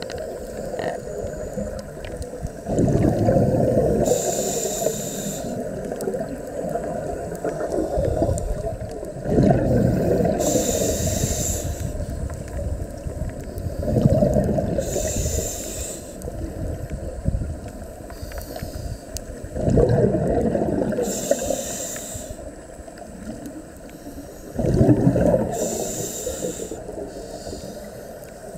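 Scuba diver breathing through a regulator underwater, a breath about every five to six seconds: five times a sharp hiss of air through the regulator and a bubbling rumble of exhaled bubbles that starts suddenly and fades away.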